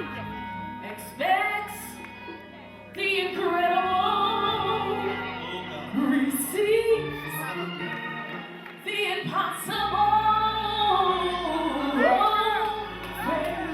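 Gospel singing with band accompaniment: a voice holding long, wavering notes over a steady bass.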